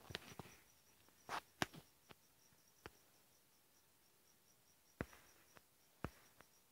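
Near silence: a faint high chirping pulsing about five times a second, with several short clicks and knocks, the loudest about one and a half seconds in.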